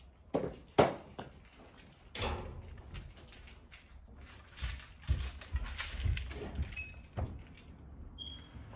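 Footsteps thudding up a flight of stairs, with keys jangling at the walker's belt. Two sharp knocks in the first second are the loudest sounds.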